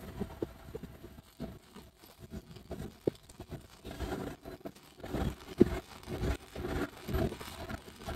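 Small metal screws, nuts and washers rattling and clinking in a small plastic parts box as fingers rummage through them, in irregular clicks that get busier in the second half.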